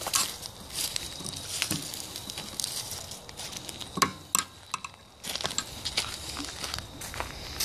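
Footsteps through grass and leaf litter, with irregular rustling and small knocks of handling noise from the bow-mounted phone and one sharp click about four seconds in.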